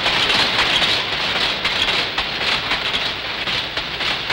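Electronically controlled power loom weaving silk: a steady, dense clatter of rapid mechanical clicks.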